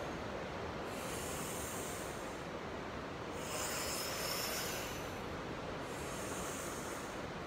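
A woman breathing audibly in and out through her mouth and nose, in time with slow yoga movements: a hissing rush of air recurs about every two and a half seconds, three times, over a steady background rush.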